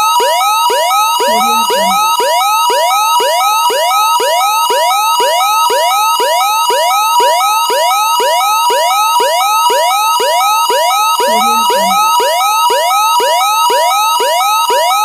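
Emergency alert system alarm tone: a fast series of rising electronic sweeps, a little over two a second, over a steady two-tone high-low beep. It is loud and keeps going without a break.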